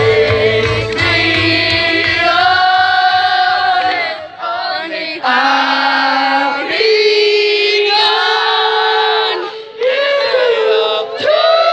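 A man singing live into a handheld microphone through a stage PA, holding long notes in phrases, with short breaks about four and ten seconds in. The backing music's bass fades out within the first second or two, leaving the voice nearly alone.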